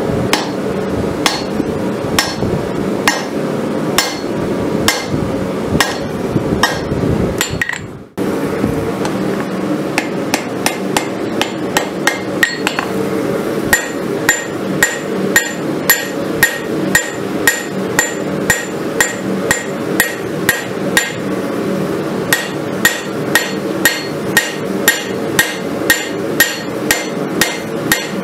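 Hand hammer striking a red-hot farrier's rasp on an anvil to forge a blade, each blow a sharp metallic clang with a short ring. The blows are spaced out at first; after a brief gap about eight seconds in they come steadily, about two a second. A steady rushing noise runs underneath.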